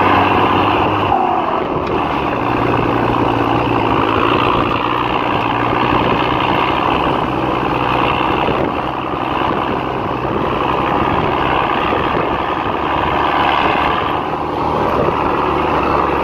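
Mercedes-Benz Unimog truck engine running steadily as the truck drives over rough grassland, heard from on top of the vehicle.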